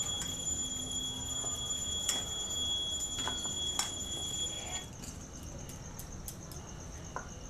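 Raw salted potato sticks lifted by hand out of their water into a steel bowl, with a few light knocks. Steady high-pitched tones run alongside and stop about five seconds in.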